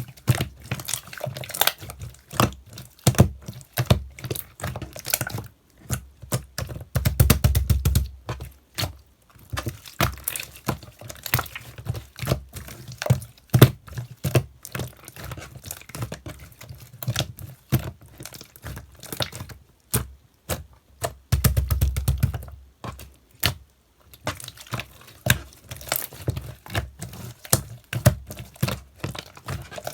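Hands squishing and pressing a clear, watery 'chalbang' slime, making rapid wet clicks and pops. It turns into two stretches of denser, heavier squelching, about seven and about twenty-two seconds in.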